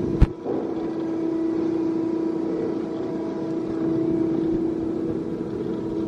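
Steady machinery hum in an industrial plant, with one strong steady tone and fainter higher ones over it, and a single sharp knock about a quarter second in.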